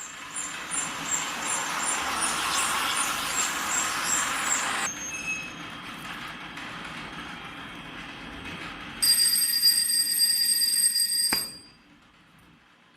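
Ice-cream cone baking machine running: a hiss with regular high ticks for about five seconds, then quieter running, then a loud steady high-pitched tone for about two seconds that cuts off suddenly.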